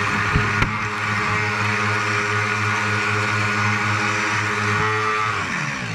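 Electric drive motor and propeller of an RC model tugboat whining steadily, heard through the hull from an onboard camera as it pushes against a creek's current, with water rushing past. There are two light knocks about half a second in, and near the end the whine falls in pitch as the motor slows.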